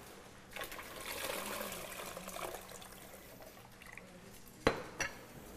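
Metal spoon scooping wet taro balls out of a ceramic bowl into plastic cups: a couple of seconds of wet sloshing, then two sharp clinks close together near the end as the spoon strikes the bowl or a cup.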